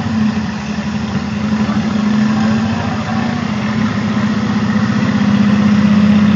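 WWII-era amphibious tank's engine running steadily as the vehicle moves through the water, a loud, even drone with a strong low hum that grows a little louder toward the end.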